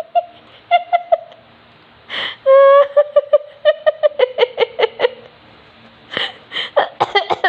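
A noisy toy squeaking and hooting: a short hiss, then a held squeak that breaks into a quick string of short, falling notes, with more short squeaks near the end.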